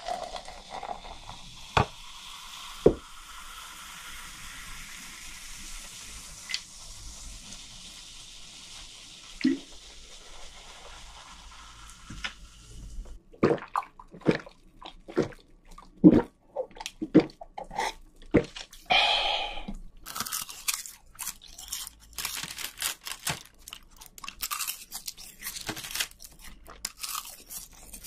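Carbonated lemon-lime soda fizzing steadily in a glass just after pouring, with a few sharp knocks of glass on the table. About 13 s in, the fizz gives way to close-miked gulping and a short vocal sound, then crisp mouth-and-chewing sounds of eating, picked up by sensitive microphones.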